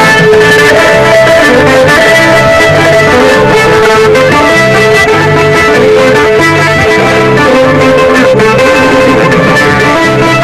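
Loud live Andean folk band music for dancing, led by guitars, with a held melody line over a steady, evenly repeating bass rhythm.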